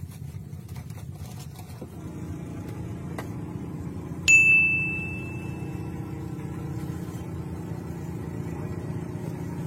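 A single sharp metallic ding about four seconds in, a clear high tone ringing out over about a second and a half, over a steady low rumble.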